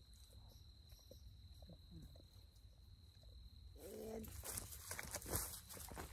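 A faint, steady, high insect drone, cricket-like, over a quiet wooded background. It stops about four seconds in and gives way to rustling and footsteps on dry leaf litter.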